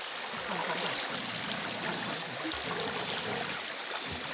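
Shallow stream rushing over a smooth rock bed: a steady, even sound of running water.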